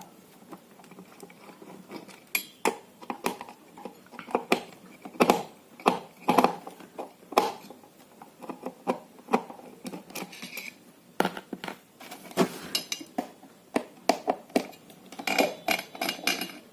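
Hand tools and screws clicking and knocking against a home theatre unit's casing as it is unscrewed and opened: irregular sharp clicks and clatter, busier near the end.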